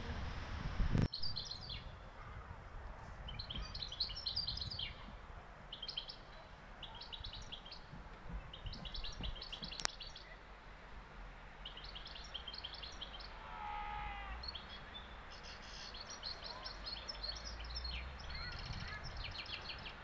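Small songbirds singing in pine woods: short, high, rapid trills repeated every second or two, with a lower series of notes about fourteen seconds in.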